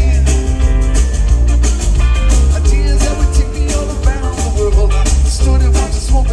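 Live rock band playing, with a man singing lead over electric guitar, bass and drums.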